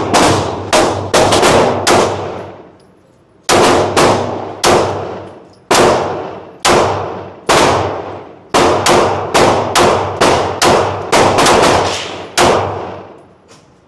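Gunshots fired in quick succession, about two dozen sharp reports, each followed by an echoing ringing tail. After the first half-dozen there is a pause of about a second and a half before the firing resumes.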